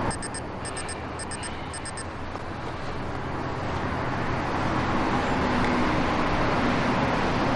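Steady outdoor traffic-like rumble and hiss that grows louder through the middle. In the first two seconds, four quick groups of three high beeps.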